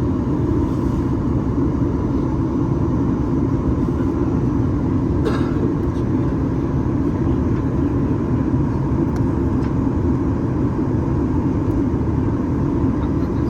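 Steady cabin drone of a Boeing 737 MAX 8-200 in flight, heard from a forward window seat: engine and airflow noise from its CFM LEAP-1B engines, with one brief click about five seconds in.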